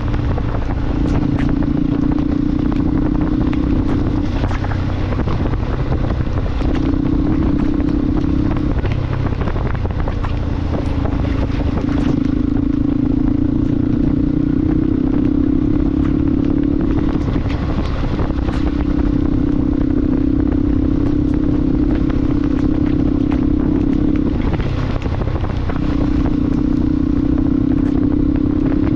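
Motorcycle engine running while riding, a steady hum that drops away briefly several times and comes back, over a constant low rumble.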